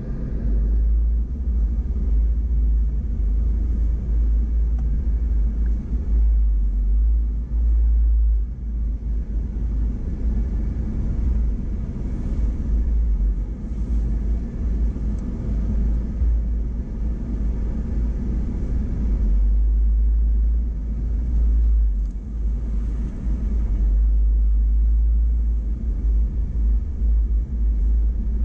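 Off-road vehicle driving slowly along a rough sandy dirt trail, heard from inside the cab: a steady low rumble of engine and tyres that swells and dips with the bumps.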